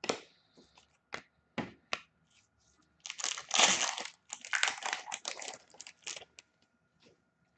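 A few light clicks as cards are handled, then about three seconds in a trading-card pack's foil wrapper is torn open and crinkled for around three seconds.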